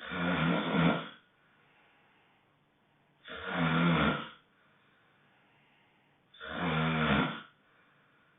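Loud honking snores: three of them, about three seconds apart, each lasting about a second and carrying a low pitched tone.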